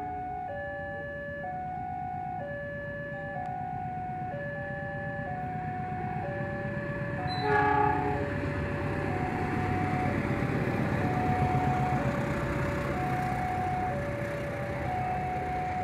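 A two-tone warning alarm, most likely a railway level-crossing alarm, alternating between a higher and a lower tone about once a second. About seven and a half seconds in comes a short train horn blast, the loudest sound, and then the rumble of an approaching train builds.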